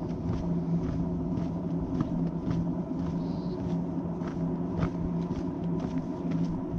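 A hiker's footsteps, about two steps a second, over a steady low drone.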